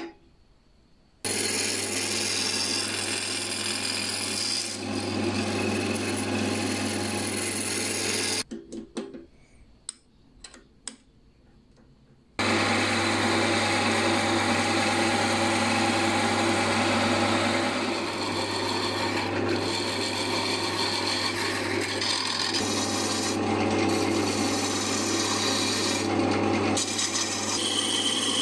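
Wood lathe spinning a honghuali blank while steel cuts into it: a drill bit bores into the end grain and turning tools shave the spinning wood, a steady rasping over the lathe motor's low hum. The cutting starts about a second in, stops around eight seconds for a few seconds of near quiet with a few clicks, then starts again around twelve seconds and keeps on.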